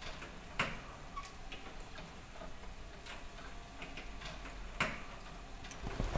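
Kinetic art machine's mechanism clicking and ticking sparsely and irregularly, with a sharper click about half a second in and another near five seconds.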